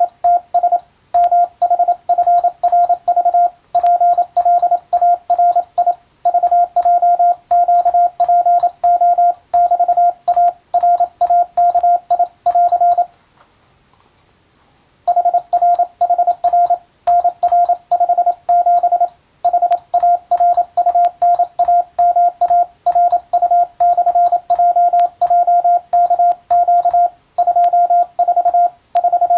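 Morse code practice tone: a single steady beep keyed on and off in quick dots and dashes, with one pause of about two seconds near the middle.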